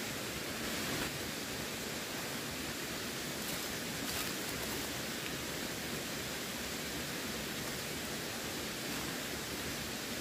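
Running water: a steady, unbroken rush.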